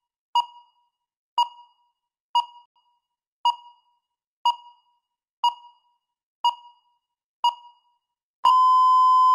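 Electronic countdown timer beeping once a second: eight short beeps, each fading quickly. Near the end comes one long steady beep, about a second long, as the countdown hits zero and signals that preparation time is over.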